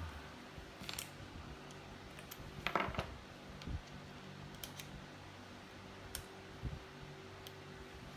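A few scattered light clicks and knocks of tools and parts being handled on a wooden workpiece, the loudest cluster about three seconds in, over a steady low hum.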